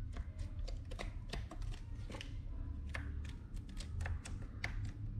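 Light, irregular clicks and taps of handling at a breaker board, a few a second, over a low steady hum.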